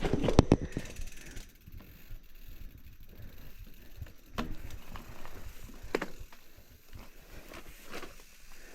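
Mountain bike coasting downhill on a rough trail: a loud rattle and knocks over bumps in the first second, then quieter with a few scattered clicks and rattles of the bike.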